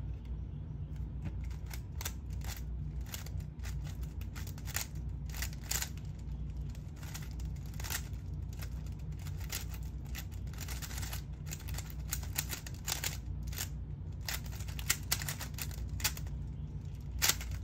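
3x3 speed cube being turned rapidly by hand through a full solve: a continuous, irregular clatter of quick plastic clicks as the layers snap round. Near the end come a few louder knocks as the finished cube is set down.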